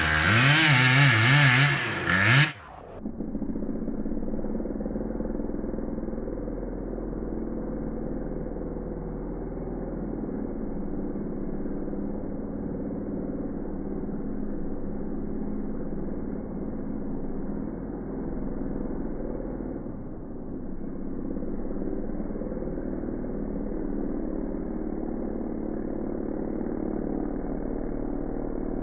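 An engine running steadily at an even speed, with a dull, muffled tone. The first couple of seconds hold a louder, brighter sound that wavers in pitch and cuts off abruptly.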